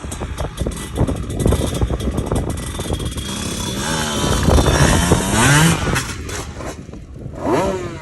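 Enduro motorcycle engine revving, rising in pitch through the middle and again briefly near the end, amid many short knocks and rattles.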